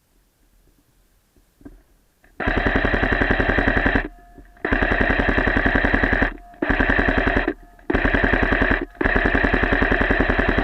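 Airsoft automatic electric gun firing five full-auto bursts: a rapid, even rattle of shots with short pauses between bursts, the longest lasting about a second and a half.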